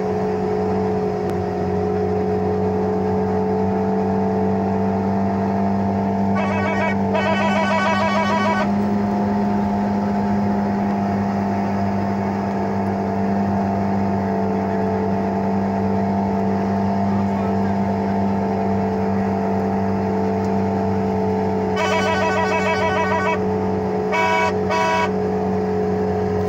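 Vehicle engine running at a steady speed while driving, heard from inside or beside the vehicle. A vehicle horn sounds in bursts: a long pulsing blast about six seconds in, and again with two short toots shortly before the end.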